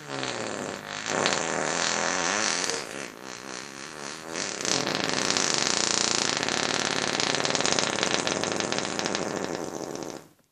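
A long, buzzy fart noise. Its pitch wavers up and down for the first few seconds, then it turns into a steadier, rougher buzz that cuts off suddenly near the end.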